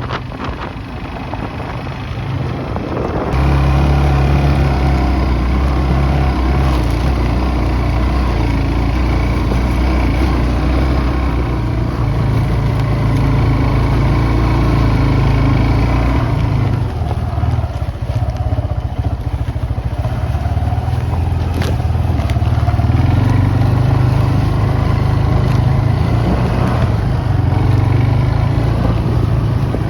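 ATV (four-wheeler) engine running as it is ridden. The engine note steps up about three seconds in, eases off around the middle, and picks up again a few seconds later.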